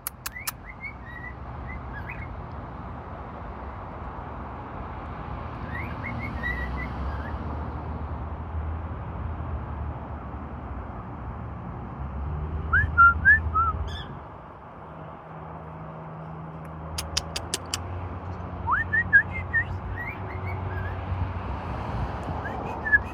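Cockatiel whistling short, chirpy rising notes in several separate bursts, over a steady low rumble. A quick run of clicks comes about two-thirds of the way through.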